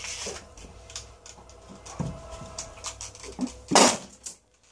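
A person quickly drinking from a clear plastic bottle: gulps and small clicks with the plastic crinkling, then a short, loud noisy burst of breath or plastic about three-quarters of the way through.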